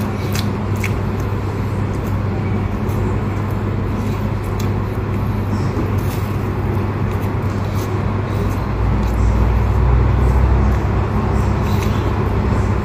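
A steady low hum, swelling louder about nine to eleven seconds in, under a few soft clicks of chewing flaky sesame pastry.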